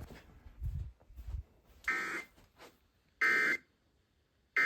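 Three short electronic buzzing beeps from a weather radio, a little over a second apart, after a few dull low bumps of handling.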